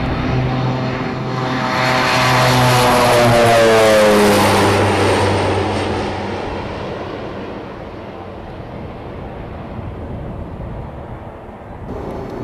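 Propeller airplane passing close by: its engine note swells to its loudest a few seconds in, drops in pitch as it goes past, then fades away.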